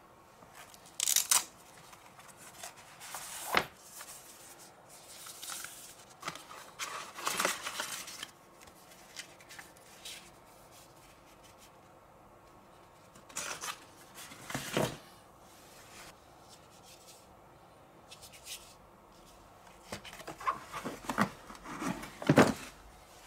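Handling noises from unpacking a massage gun's carrying case: paper leaflets rustling and rubbing, with a few sharp knocks and clicks as hard pieces are lifted and set back in the case.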